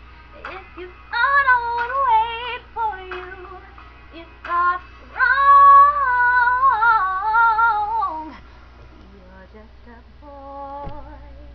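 A young woman's solo voice singing wordless runs and long held notes with vibrato, loudest in the middle, then fading to a quieter short phrase near the end. A steady low hum sits underneath.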